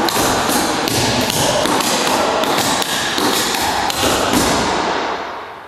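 Clogging shoe taps striking a wooden floor in a fast, steady run of steps, dying away near the end.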